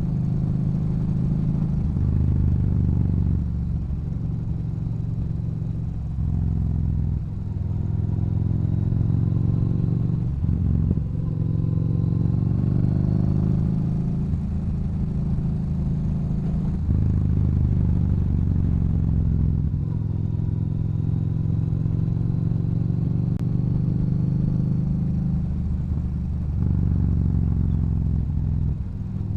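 Yamaha Bolt's air-cooled V-twin running through an aftermarket Cobra exhaust while riding. The engine note climbs under throttle and drops sharply several times, at gear changes or when the throttle is rolled off.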